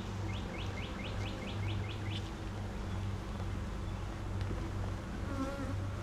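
Honeybees buzzing in a steady hum over an open brood box full of bees. In the first two seconds a quick run of about eight short rising chirps sounds over the hum.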